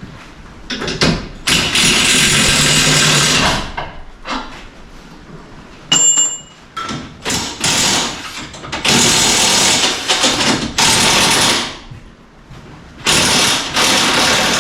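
Impact wrench run in repeated bursts of one to two and a half seconds on a bolt, stopping and starting again, with a sharp metallic click about midway.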